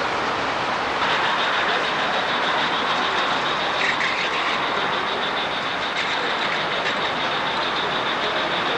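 O scale model steam locomotive hauling a freight train past: a steady rush of wheels running on the rails, with a high steady whine that starts about a second in.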